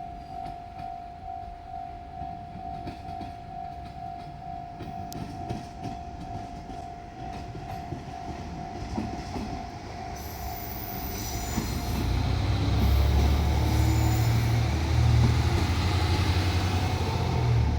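Japanese level-crossing warning bell ringing in an even, pulsing tone. About ten to twelve seconds in, a diesel railcar draws near and passes, its engine's low rumble and the wheel noise growing loud and drowning out the bell.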